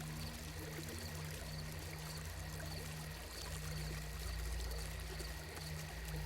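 Soft ambient sleep soundscape: gently flowing, trickling water over a low, steady drone.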